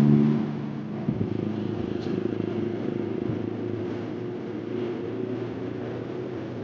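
An engine running steadily, louder in the first moment and then settling into a lower hum.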